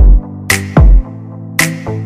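Electronic background music with a repeating beat: deep bass drum hits that slide down in pitch and a sharp snare hit about once a second, over held synth chords.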